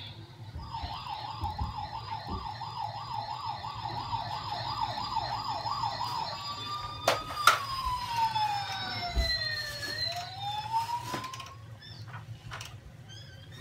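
Emergency vehicle siren in a fast yelp, about three warbles a second, then changing to a slow wail that falls and rises again. A sharp click sounds about seven seconds in.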